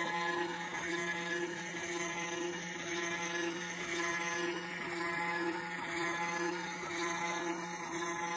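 CNC router spindle running steadily while a small round-nose bit carves a walnut relief, a constant motor hum with a slight regular swell.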